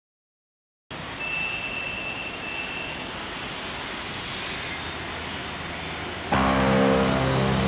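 Silence for about the first second, then a steady rushing noise of road traffic. About six seconds in, music with held low chords starts over it and is louder.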